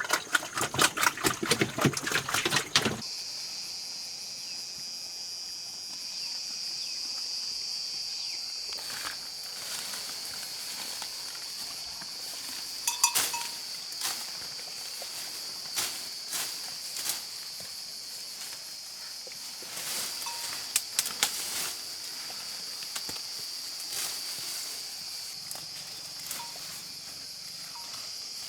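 A fast, even run of clicks that stops abruptly about three seconds in. Then a steady high-pitched insect chorus with scattered sharp clicks and knocks over it.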